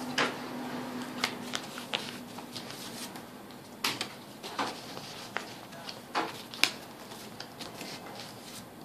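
Scattered sharp clicks and a few light knocks, about a dozen at irregular intervals, over faint room tone; a low hum stops about a second and a half in.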